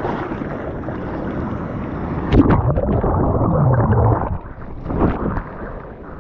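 Breaking wave's whitewater rushing over a surfboard at the water surface: a sudden loud crash of water about two and a half seconds in, then heavy churning and gurgling while the camera is under the foam, easing off near the end with one more brief surge.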